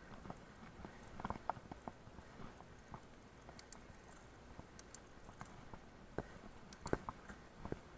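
Mountain bike rattling over a rocky trail: irregular faint knocks and clicks, with a few louder knocks near the end.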